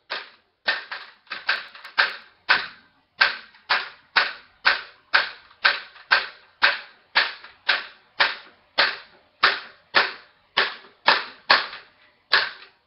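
Detuned, slack A string of an old-stringed Ibanez BTB 5-string bass being thumb-slapped hard with the amp volume turned down: a steady run of sharp snaps, about two a second. The slapping is meant to shake grime loose and brighten dead strings.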